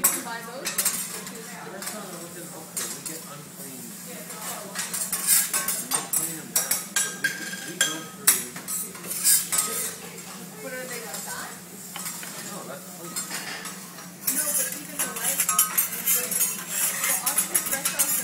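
Teppanyaki chef's metal spatulas scraping and clacking against the steel hotplate, in quick runs of taps that grow densest near the end, over a steady low hum.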